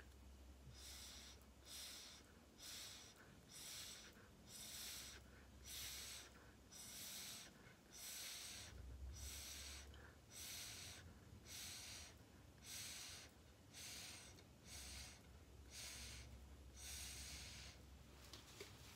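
Faint, repeated short puffs of breath blown through a drinking straw onto wet acrylic paint, about one to two puffs a second, pushing the paint across the poured canvas.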